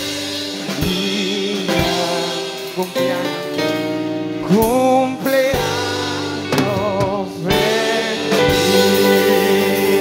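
Congregation singing a birthday song in Spanish, led by one strong voice, with a band playing along.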